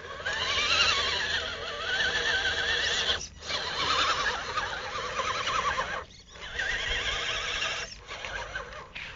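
Radio-controlled mud truck's motor and gear train whining as it drives through mud, the pitch wavering up and down with the throttle. The whine stops for three short breaks, a little after three seconds, around six seconds and around eight seconds in.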